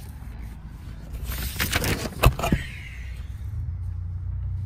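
A clipboard and paper form being handled: rustling and scraping for about a second and a half with several sharp clicks, the loudest about two seconds in, over a low steady rumble.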